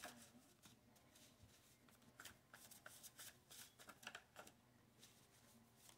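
Faint shuffling of a deck of tarot cards: soft, irregular rustles and clicks.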